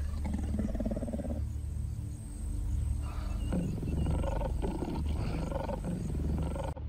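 Lion growling: a short growl about a second long at the start, then a longer run of rough growls from about three seconds in, over low background music.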